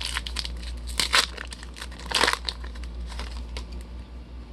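Crinkling and tearing of a trading card pack's foil wrapper, in several short bursts, as cards are handled and unwrapped.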